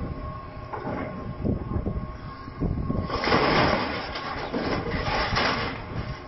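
Excavator's demolition attachment tearing and crushing the aluminium fuselage of a Yak-42 airliner: metal creaking and crunching, much louder from about three seconds in.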